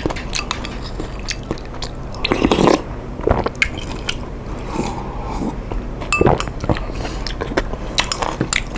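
Close-miked eating sounds: chewing and biting a mouthful of instant noodles and seafood, with wet mouth clicks and a few louder bursts.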